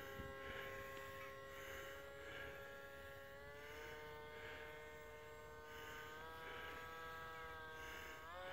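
Distant whine of an F6F Hellcat foam model plane's electric motor and propeller in flight, faint and steady, stepping up in pitch twice as the throttle is opened, then dipping and climbing sharply near the end.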